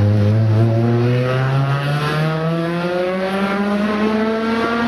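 Rally car engine accelerating hard out of a corner and away, its pitch rising steadily in one gear.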